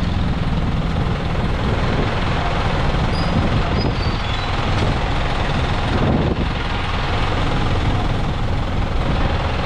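Steady city street traffic noise: vehicle engines running close by, with a low rumble and no clear breaks.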